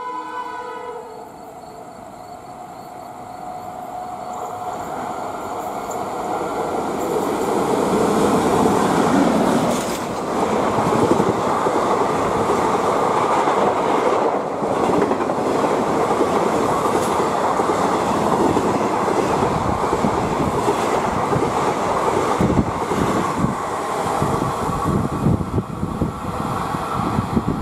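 Uttar Banga Express passenger train running through a station at about 107 km/h. The sound grows as it approaches over the first several seconds, then its coaches rumble past steadily. Near the end the wheels clatter quickly over the rail joints.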